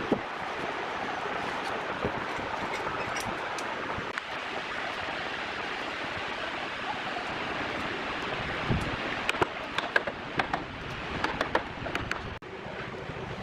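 Steady outdoor background noise, with a dull thump and then a run of light clicks and taps about two thirds of the way in, from a steel square and pen being handled on a wooden workbench.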